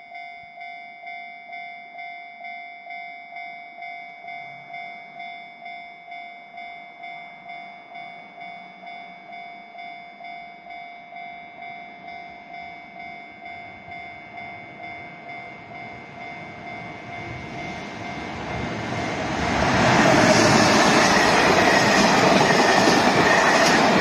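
Japanese railway level-crossing warning bell dinging in an even rhythm of about two strokes a second. A freight train of container wagons then approaches, growing louder from about seventeen seconds in, and from about twenty seconds in it passes close by with a loud, continuous rumble and clatter of wheels that drowns out the bell.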